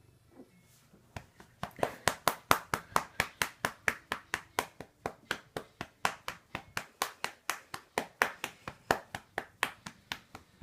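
A hand slapping a cat's rump over and over in a quick, even rhythm, about four to five pats a second, starting about a second in.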